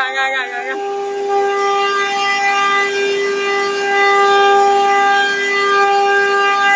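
CNC router spindle cutting grooves in a wood board, a steady high whine with overtones that come and go. A brief warbling sound in the first second.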